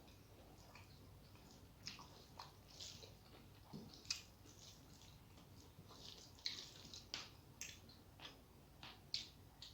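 Faint eating sounds of a rice meal: irregular soft wet smacks and squishes of chewing, with small clicks.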